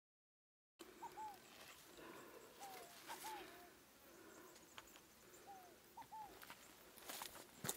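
Faint outdoor ambience that begins about a second in after silence: a bird repeating short arched notes, often two in quick succession, every second or two, with a few faint clicks, the sharpest near the end.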